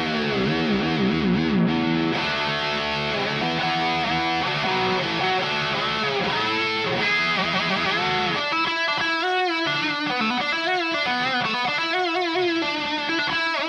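Donner DST-152B electric guitar played with heavy tremolo-arm use: the opening notes waver widely in pitch, then a single-note melody follows with its notes wobbling and bending under the whammy bar.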